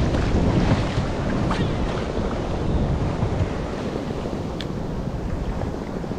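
Wind buffeting the microphone over choppy sea, with waves washing around a fishing kayak and two faint ticks.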